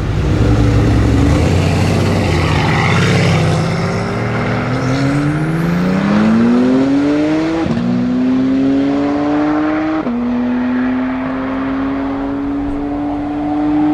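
A tuned Porsche 991 Turbo S with its twin-turbo flat-six and a Mercedes-AMG C 63 with its twin-turbo V8 accelerating flat out side by side from a rolling start. A deep rumble gives way to an engine note rising steadily in pitch, broken by three upshifts, each a sudden drop in pitch, as the cars pull away into the distance.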